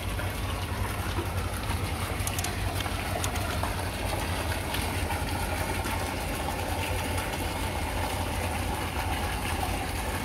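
A steady low rumble with a hiss over it, no distinct event.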